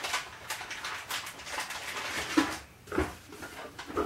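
Irregular light clicks, taps and rustles of small parts being handled, about half a dozen short sounds, the loudest about two and a half seconds in.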